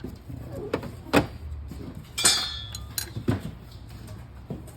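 Metal tools and parts being handled: a few sharp knocks and clinks, with one ringing metallic clink a little over two seconds in, over a steady low hum.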